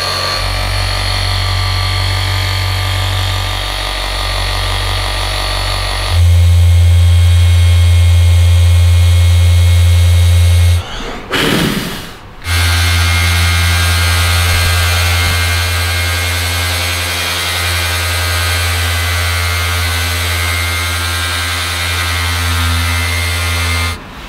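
An electric machine running with a loud, steady hum. It gets louder about six seconds in, stops for about a second and a half near the middle, then starts again and cuts off just before the end.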